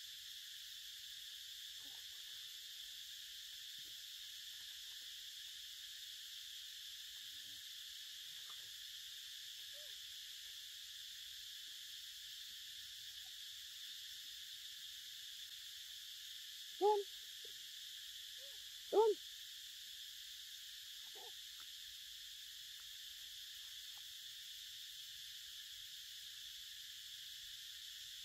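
Baby macaque giving two short, loud coo calls about two seconds apart past the middle, with a few fainter ones around them. Underneath is a steady, high-pitched insect drone.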